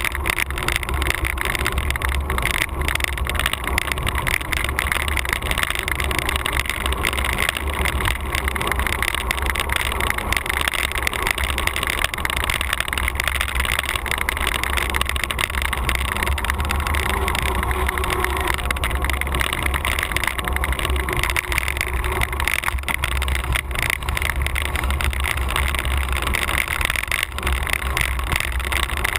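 Steady wind rush over the microphone of a camera riding along a patched asphalt road, with a deep low rumble from the road surface.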